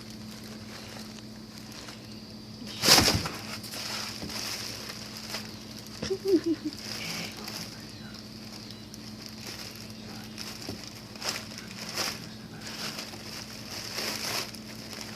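Plastic bubble wrap rustling and crackling, with scattered clicks and one louder crack about three seconds in. A brief low chirp comes about six seconds in, over a steady background hum.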